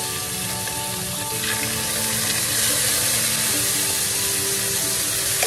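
Soy-marinated chicken thighs sizzling as they fry in hot oil in a nonstick pan, a steady hiss, with faint background music.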